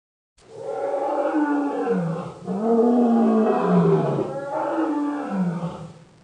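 Big-cat roar sound effect standing for an extinct American lion: one long, loud roar whose pitch dips and rises in several swells, cutting off abruptly at the end.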